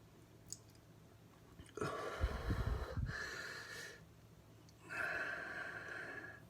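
A man breathing hard through the mouth in two long breaths, one about two seconds in and another about five seconds in, from the burning heat of a hot chili pepper.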